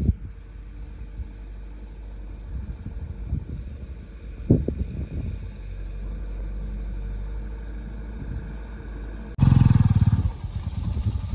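Engine of an overloaded sugarcane truck running in low gear as it creeps along a rutted dirt track, a steady low rumble with a clatter or knock about four and a half seconds in. Near the end the sound jumps to a much louder, closer truck engine.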